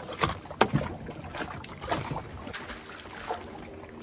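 Lake water lapping against a floating dock, with a few sharp knocks and handling noises; the loudest knock comes under a second in.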